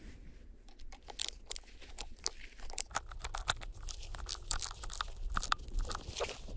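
A screwdriver tightening a worm-drive hose clamp on a fabric lay-flat hose: a run of quick, irregular clicks and scrapes that starts about a second in and gets busier.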